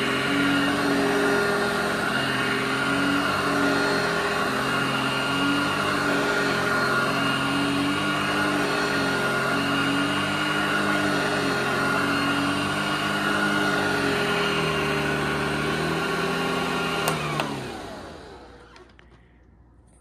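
Vintage Hoover Junior child-size upright vacuum cleaner running on carpet, a steady motor hum whose pitch wavers up and down every couple of seconds as it is pushed back and forth. Near the end it is switched off with a click and runs down.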